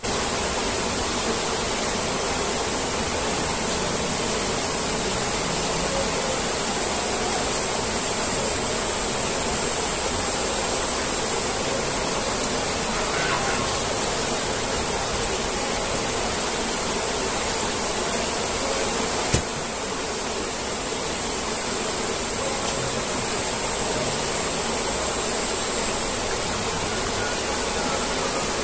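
Rushing water of a small rocky stream, a steady even hiss, with one short click about 19 seconds in.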